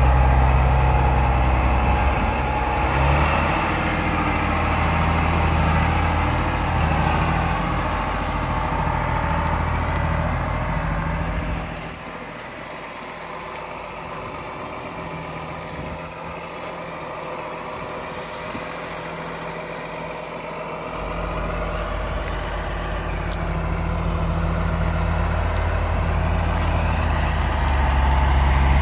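John Deere 4955 tractor's six-cylinder diesel engine running steadily. Its deep engine note drops away for several seconds midway, leaving a quieter, higher hum, then comes back.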